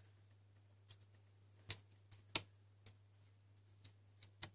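A few faint, scattered clicks as the RAM slot's retention clips in a MacBook Pro are pushed aside and a laptop memory module is handled, over a low steady hum.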